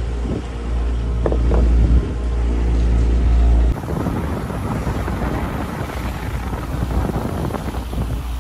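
Wind buffeting the microphone over the rush of water along the hull of a sailboat under way. A deep wind rumble dominates the first few seconds, then breaks off abruptly into a more even hiss of wind and waves.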